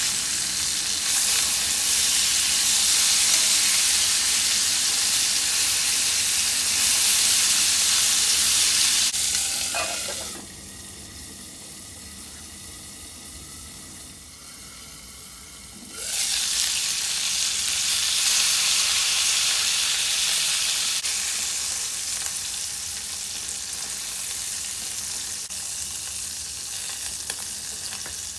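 Food sizzling in a cast-iron skillet. About ten seconds in, the sizzle drops to a muffled hiss while a cast-iron lid covers the pan. It comes back loud about six seconds later, then slowly fades as the pan cooks down.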